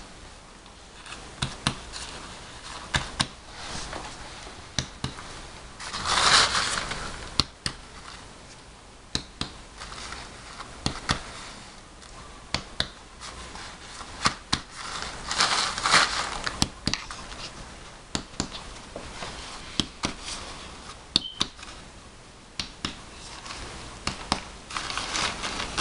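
Fingers tapping on the back of the chest, indirect percussion of the lungs: dozens of short, sharp taps in small clusters, which sound resonant, the note of normal air-filled lung. Twice a longer rustle stands out.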